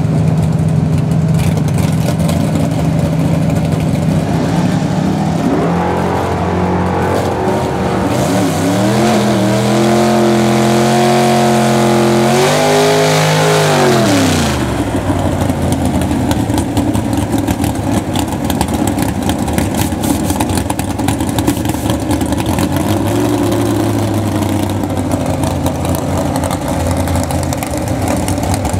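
Drag-race AMC Gremlin's iron-block engine, first running steadily, then revved hard for a burnout with the tyres spinning: the pitch climbs, holds, climbs again and drops sharply about fourteen seconds in. It then settles to an uneven, rough idle for the rest of the time.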